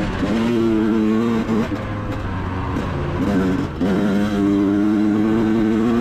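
Yamaha YZ125 single-cylinder two-stroke dirt bike engine revving high under throttle. The engine note drops off briefly twice, about two and four seconds in, then pulls back up.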